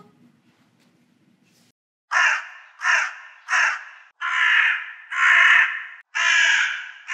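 Crows cawing: a run of about seven caws starting about two seconds in, the first three short and the later ones drawn out longer.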